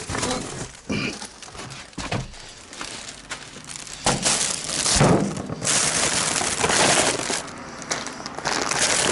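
Hands handling and rustling packaging or parts, with a few light knocks and then a long stretch of loud crinkling and rustling from about four seconds in.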